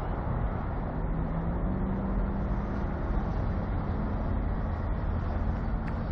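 Steady low rumble of a semi truck's diesel engine idling.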